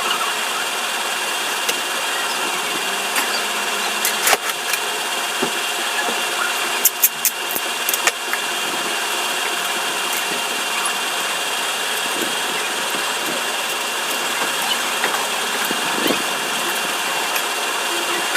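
Steady hum of an engine idling, with a few sharp clicks about four and seven seconds in.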